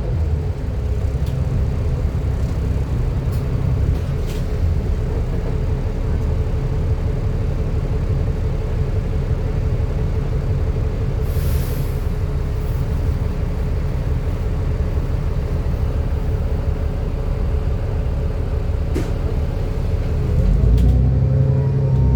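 Alexander Dennis Enviro400 double-decker bus under way: low engine rumble with a steady turbocharger whine over it, the whine falling in pitch at first and climbing again near the end. About halfway through, a short hiss of compressed air.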